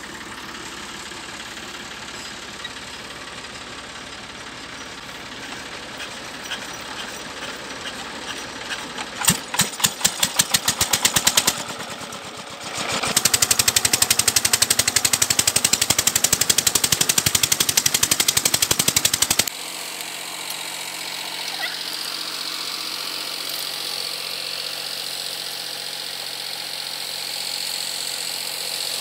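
Small stationary diesel engine driving a tubewell pump: about nine seconds in it fires with heavy separate strokes, then runs with a loud, fast, even beat. About twenty seconds in the sound cuts to a quieter, steady engine hum.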